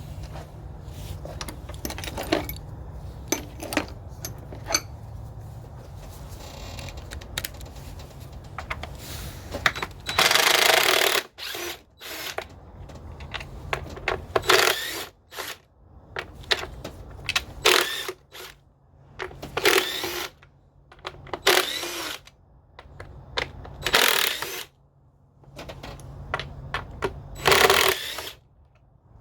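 Ratchet wrench working loose bolts on a car engine: scattered clicks and knocks of tools and parts at first, then about seven short bursts of ratcheting from about ten seconds in.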